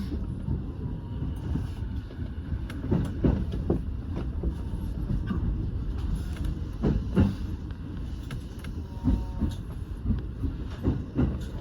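Electric commuter train running, heard from on board: a steady low rumble of wheels on rail with irregular short knocks from the track, the strongest a few seconds in and again about halfway through.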